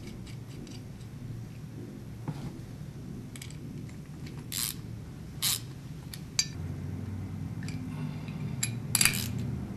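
Metal hardware clinking and knocking as carriage bolts and metal mount pieces of a satellite dish roof mount are handled and fitted together: short sharp clinks about once a second, a few louder ones in the middle and a quick double clink near the end.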